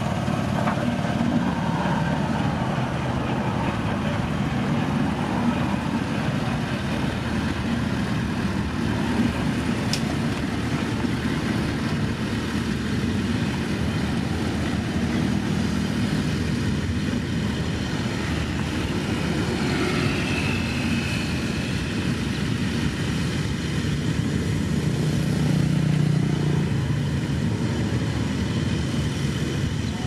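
Diesel engines of single-drum road roller compactors running steadily as the rollers drive over loose gravel road base, with a low rumble that swells a little near the end.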